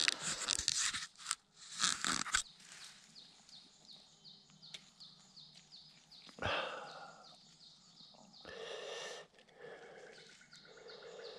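Leaf litter and soil rustling and scraping as they are brushed aside by hand around a small wild ginseng plant, loudest in the first two seconds or so, with one sharp knock in the middle. A high chirp repeats about three times a second in the background.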